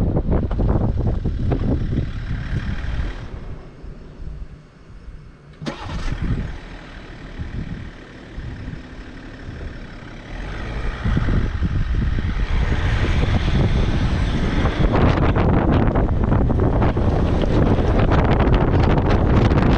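Off-road vehicle driving along a rough dirt track, engine and track noise mixed with wind buffeting the microphone. The noise drops for several seconds in the middle, with one sharp knock about six seconds in, and rises again from about eleven seconds.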